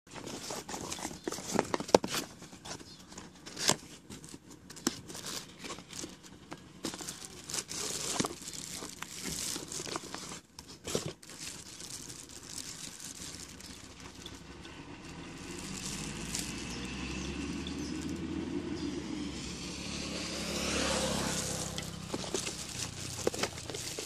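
Plastic bags and bubble wrap crinkling and crackling as a boxed siren horn is unpacked and handled, with many sharp irregular crackles. In the second half a steadier low rumble builds underneath.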